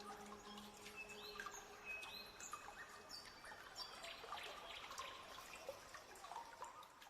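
Faint birds chirping and singing over the quiet trickle of a river's flowing water, with the last held note of music dying away in the first two seconds.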